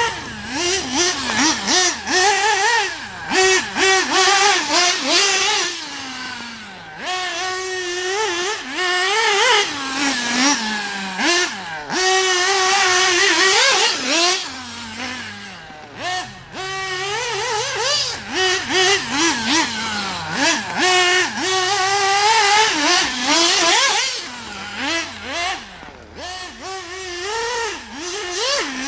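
Nitro RC car's Alpha Plus .21 glow engine with a tuned pipe, revving up and down over and over as the car is driven, its high pitch rising on the throttle and falling off between bursts.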